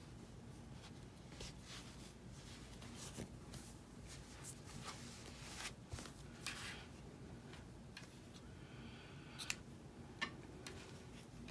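Faint, scattered swishes of yarn being drawn through crocheted fabric as a button is sewn on with a yarn needle, with two short sharp clicks near the end.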